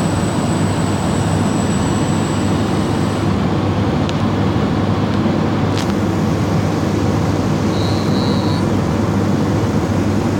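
Daikin split air conditioner's outdoor condensing unit running with a steady, even hum from the compressor and condenser fan, while it is being charged with R22 refrigerant.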